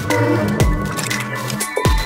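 Electronic music: deep kick-drum thuds that drop in pitch land twice, over a held bass line and scattered high clicks.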